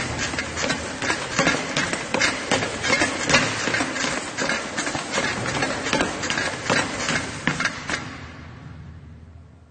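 Treadmill with someone running on it: regular footfalls, a few a second, over the steady running noise of the motor and belt. It fades out near the end.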